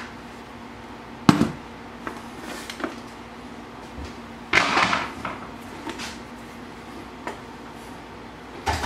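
Handling noise from an inline skate and its frame while the UFS mounting bolts are being taken out: one sharp knock about a second in, a few light ticks, and a short rustling scrape about halfway through.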